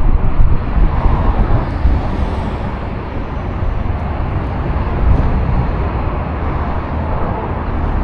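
Loud, steady road traffic noise from vehicles passing close by, with a heavy rumble that swells and eases.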